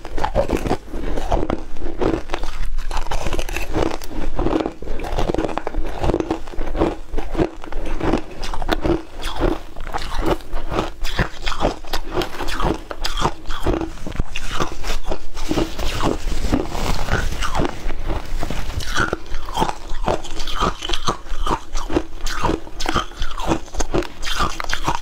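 Ice being bitten and chewed right at the microphones: a continuous run of crisp, crackling crunches, several a second.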